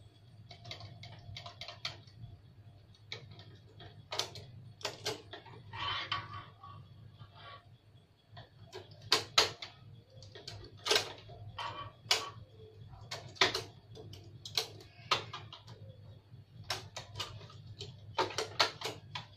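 Hands handling a new Canon Pixma iP2770 inkjet printer: irregular plastic clicks and knocks around its taped cartridge carriage, with several sharper, louder clicks from about nine seconds in.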